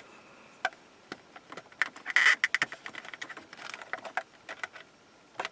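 Small plastic clicks and scraping from a flat-blade screwdriver bit prying at the clip tabs of an overhead map-light lens cover, with a longer scrape about two seconds in.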